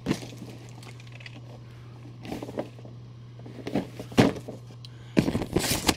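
Handling noises from boxed collectible statues and their packaging: scattered knocks and rustles, busiest near the end, over a steady low hum.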